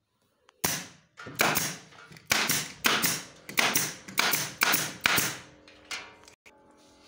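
Staple gun firing about a dozen staples in quick succession, a couple a second, each shot a sharp snap with a short fading tail, driving staples through upholstery fabric into a wooden chair frame.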